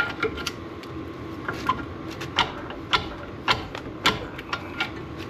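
Hand tools clinking and tapping against seized, rusted brake caliper hardware: a run of sharp metal clicks, about two a second and irregular, as the frozen part is worked loose.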